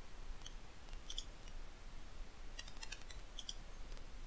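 Quiet computer mouse clicks: a few single sharp clicks spread out, and a quick run of clicks about two and a half seconds in.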